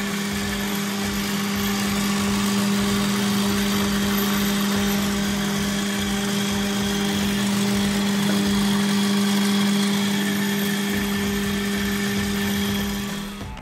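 Electric noodle-cutting machine running with a steady motor hum.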